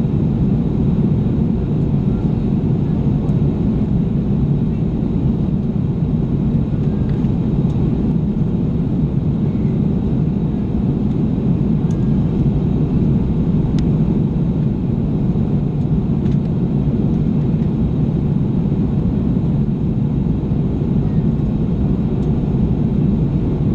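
Airbus A330 cabin noise in flight, heard from a window seat over the wing: the jet engines and rushing air make a steady, even low rumble.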